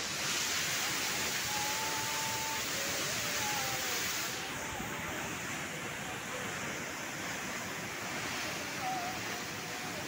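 Steady rushing of a large waterfall close by, an even hiss of falling water; the highest part of the hiss drops a little about four seconds in.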